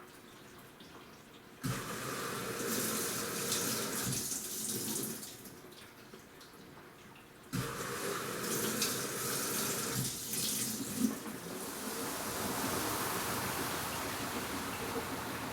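Water rushing and splashing inside an AQUA washing machine's tub. It starts abruptly about a second and a half in, dies away after a few seconds, then starts abruptly again near the middle and keeps going.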